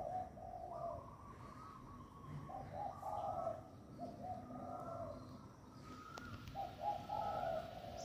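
Spotted dove cooing in repeated low phrases, answered by a second dove cooing higher and fainter.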